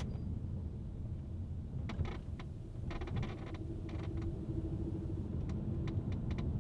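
Inside a moving Honda Stepwgn RP3, road and engine rumble carries on under short, repeated creaks from the second-row seat as the car goes over vibrations. The seat squeak is a dry joint that the owner thinks most likely needs lubricating.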